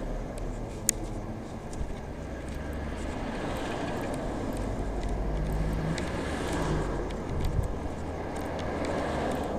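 Street traffic: a steady road noise with a car passing, swelling and fading through the middle. There is a sharp click about a second in.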